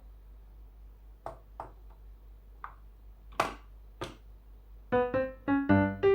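A few short, sudden taps or rustles over faint room hum, then a light piano tune starts about five seconds in and is the loudest sound.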